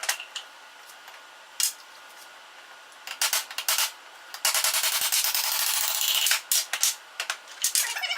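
Metal clicks and knocks from work on the milling machine, with a run of rapid, even clicking lasting about two seconds around the middle.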